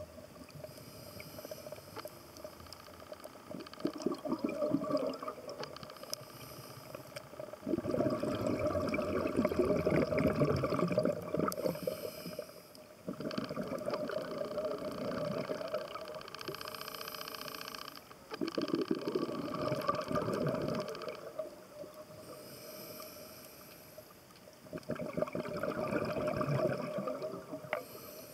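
A scuba diver breathing through a regulator, heard underwater: several long, bubbling exhales a few seconds apart, with quieter hissing inhales between them.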